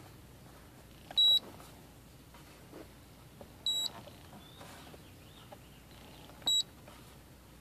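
Feniex 4200 emergency-light controller beeping as its buttons are pressed: three short high beeps a couple of seconds apart, with faint button clicks between.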